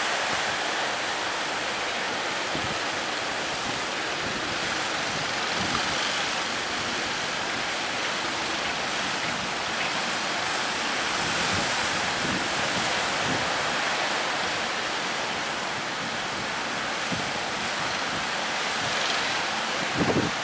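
Steady rush of ocean surf breaking, with wind on the microphone and a few low buffeting gusts near the end.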